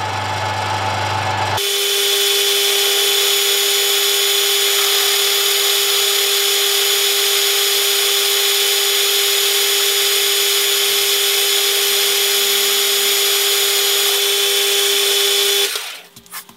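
Warco WM180 mini lathe running under power feed, taking a 1 mm deep turning cut in mild steel: a steady whine over a high-pitched hiss of cutting, starting abruptly about a second and a half in and cutting off about a second before the end. The cut runs smoothly, with no chatter from the tool post.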